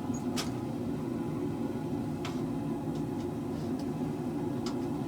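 A blacksmith's forge running with a steady rushing noise, with a few faint clicks.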